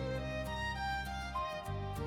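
Background music: slow, sustained melodic notes, with violin, over a low held drone.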